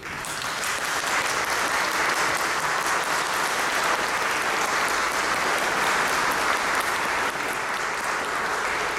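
Audience applauding: steady clapping that starts suddenly and begins to fade near the end.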